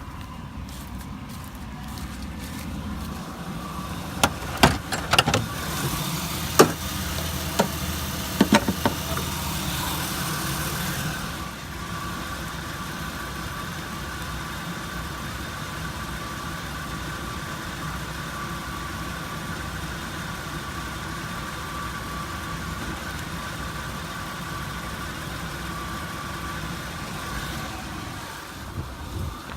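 2004 Chevy Venture minivan being driven on the road, heard from inside: steady engine and road drone with a faint whine. A cluster of sharp knocks and rattles comes a few seconds in, over a rushing hiss that drops away after about eleven seconds.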